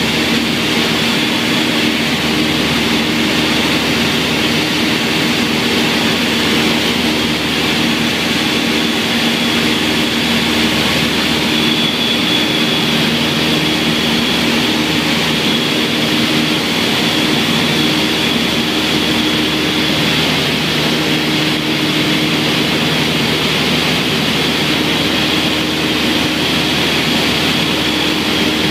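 Twin piston engines and propellers of a light multi-engine aircraft droning steadily, heard inside the cabin, with a steady high whine over the low engine hum.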